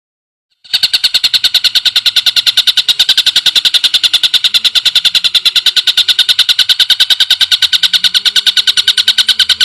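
Cucak ijo (greater green leafbird) masteran call: a loud, high, rapid trill of about ten even chirps a second that cuts in abruptly about a second in and keeps going without a break.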